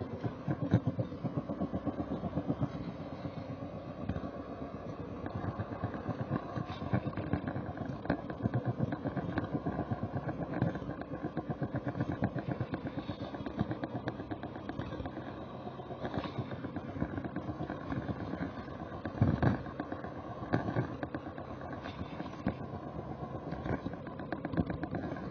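Model train running along its track, heard from the camera car itself: a steady rattle of wheels and motor with rapid fine clicking, and a louder knock about two-thirds of the way through.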